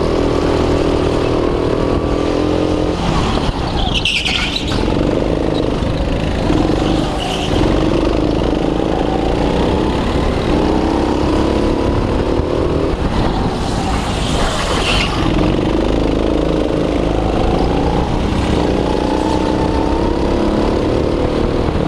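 Honda four-stroke engine of a rental go-kart running under throttle, its pitch rising and falling repeatedly as it speeds up and slows for corners. Other karts running close by, and two short high-pitched squeals, one about four seconds in and one past the middle.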